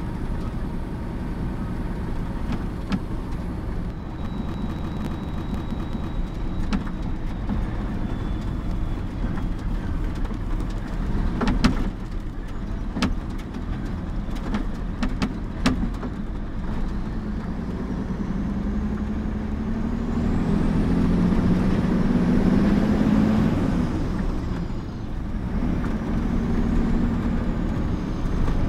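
Mercedes-Benz mixer truck's diesel engine running on the road, a steady low rumble heard from inside the cab. A few sharp knocks come about a third of the way in. Later the engine note rises with a high whistle climbing alongside, then falls back.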